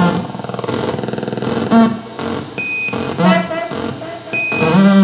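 Live experimental electronic noise music from small wired electronic instruments: short pitched electronic tones that sweep and warble in repeated bursts, with low blips, and two brief high beeps nearly two seconds apart.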